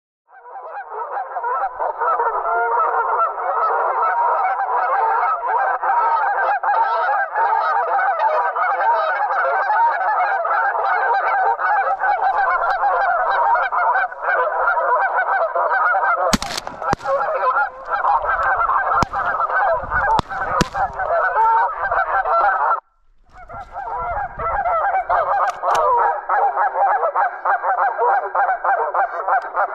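A large flock of geese honking continuously, many calls overlapping. A sharp bang cuts through about 16 seconds in, with a few more knocks soon after, and the sound drops out for a moment near the 23-second mark before the honking resumes.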